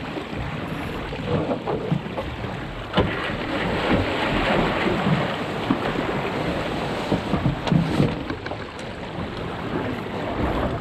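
Wind buffeting the microphone and water rushing along the hull of a National 18 sailing dinghy under way. A few sharp knocks and rattles come from the sail and rigging as the crew douses the gennaker.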